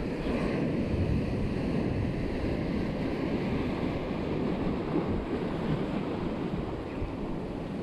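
Ocean surf breaking and washing around concrete tetrapods and rocks, a steady rushing wash, with wind buffeting the microphone.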